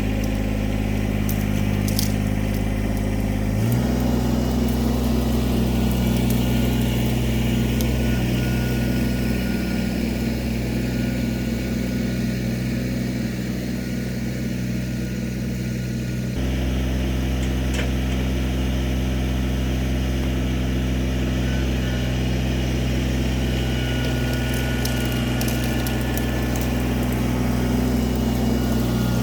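Kubota BX23 compact tractor's three-cylinder diesel running steadily, its engine note shifting to a different speed about four seconds in and again about halfway through as it is worked pulling on a chained stump. A few light clicks sound over the engine.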